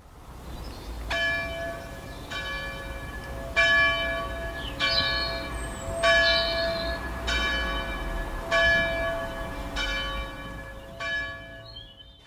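Church bells ringing: about nine strikes, evenly spaced roughly a second and a quarter apart, each with a long ringing tail.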